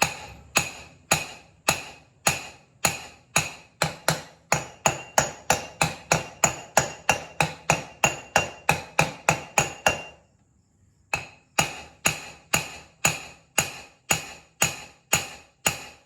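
Repeated hammer blows with a metallic ring on the stuck flywheel of a 1990 Johnson 9.9 outboard motor, struck to break it loose from the crankshaft, which has probably never been off. About two blows a second, quickening to about three, a pause of about a second past halfway, then steady blows again.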